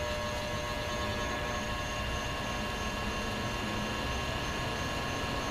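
Vintage ILG box fan running steadily: the motor hums and the air rushes through the blades, with a few faint, steady whining tones over it.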